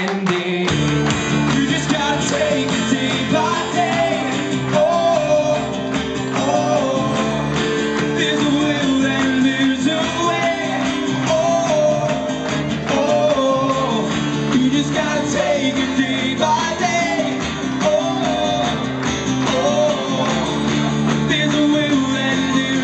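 Live song: two men singing to a strummed acoustic guitar.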